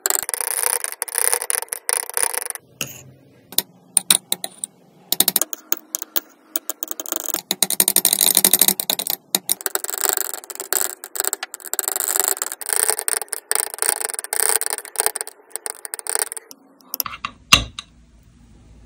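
Palette knife scraping and smearing thick paint around a palette well, in irregular wet strokes with short pauses. One sharp click comes near the end.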